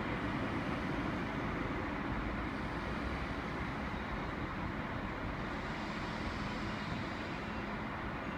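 DB Class 628 diesel multiple unit pulling away, its steady running noise slowly fading as it moves off.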